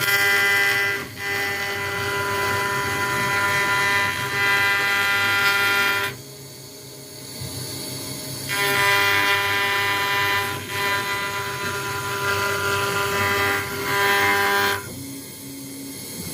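CNC router spindle cutting an acrylic sheet: a steady, high-pitched whine made of many tones. It is loud for about six seconds, drops quieter for about two seconds, then is loud again for about six seconds before dropping again near the end.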